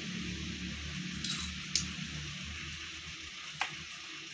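Two light clicks of miniature stainless steel toy cookware being handled, over a steady low background hum.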